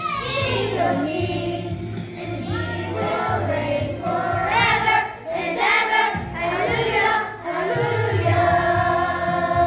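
A group of young children singing a song together as a choir.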